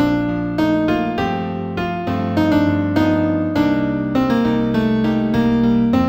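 Piano playing a new-age instrumental piece in B minor: struck notes about twice a second over sustained bass notes.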